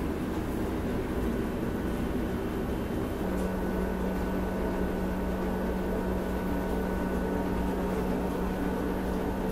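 Steady low rumble and hum of a ferry under way, its engines and ventilation heard inside the ship; a steady droning hum joins about three seconds in.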